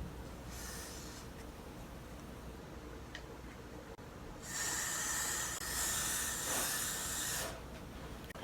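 Aerosol hairspray (Got2b Glued) hissing from the can in bursts: a short spray about half a second in, then a longer spray of about three seconds starting near the middle.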